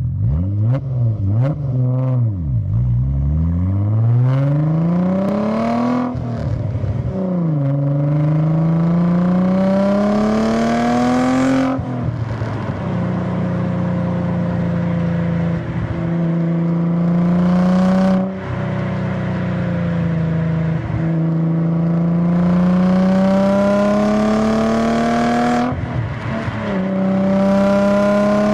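Audi RS4 engine heard from inside the car: a few quick revs in the first seconds, then repeated pulls with the pitch climbing steadily through each gear. The pitch drops sharply at each shift, several times over, with a stretch of steadier cruising in the middle.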